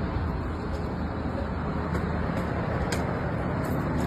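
Steady road and engine rumble inside a moving vehicle, with a sharp click about three seconds in.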